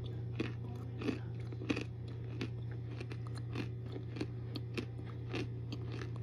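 Close-up chewing of dry, hard baked starch brick: crisp crunches in a steady rhythm, roughly every 0.6 seconds, about ten in all.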